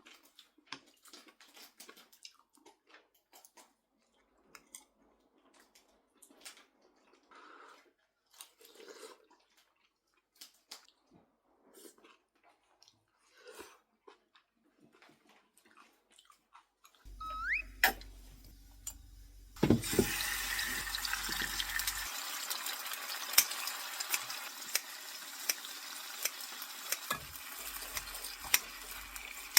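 Kitchen work: faint clinks and handling noises, then about two-thirds of the way in a loud, steady hiss with fine crackling starts and keeps going.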